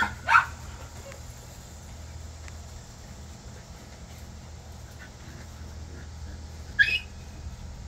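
Puppies giving sharp, high-pitched yaps during rough play: a quick cluster in the first half-second and a single rising yap near the end, with a few faint ones between. A steady low hum runs underneath.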